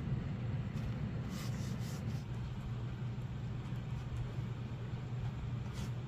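Steady low background hum, with a few faint soft rustles of indigo-dyed cloth being wound onto a wooden hongdukkae roller, about a second and a half in and near the end.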